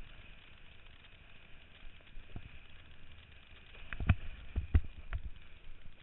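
Kiteboard skimming over choppy water: a steady rush of wind and water, with a quick run of sharp slaps and thumps about four seconds in as the board hits chop and spray strikes.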